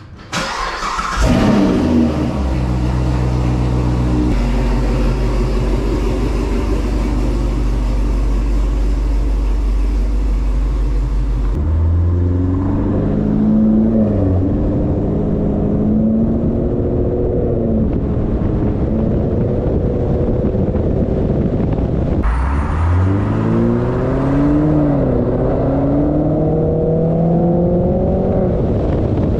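Corvette V8 starting up with a short flare of revs that settles into a steady idle. About twelve seconds in it revs and pulls away, its pitch rising and dropping through the gears, and near the end it accelerates again with a long rising pull.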